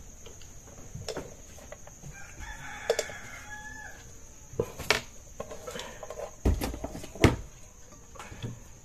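A rooster crows once, a call of about a second and a half that falls away at its end, about two seconds in. Later come sharp knocks and clatter of a metal rice pot and serving spoon as rice is scooped out, over a steady chirring of crickets.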